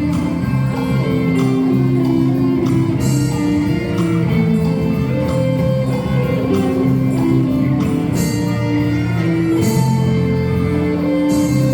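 Live instrumental ensemble playing a Brazilian popular song, a held melody line over a steady accompaniment.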